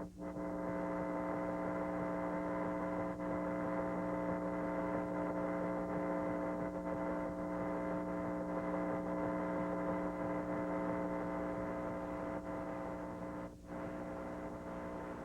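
Steady electrical mains hum and buzz on the cable channel's audio during a failed EAS Required Monthly Test. It drops out briefly just after the start and again near the end.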